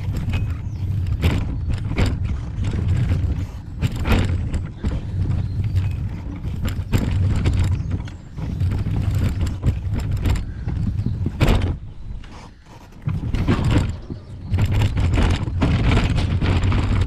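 A wheelchair rolling across a railway level crossing's deck, with a steady low rumble from the wheels and repeated sharp knocks and clatters as they bump over panel joints and rails.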